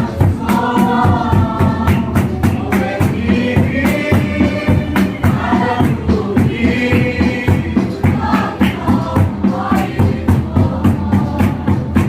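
A group of voices singing a gospel hymn together over a steady, even drumbeat.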